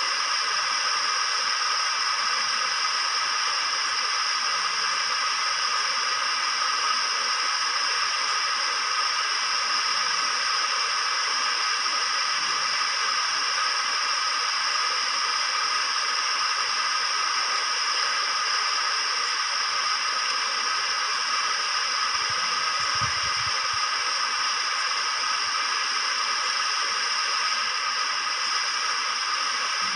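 Steady, unchanging hiss of noise, even in level throughout and thin in the low end.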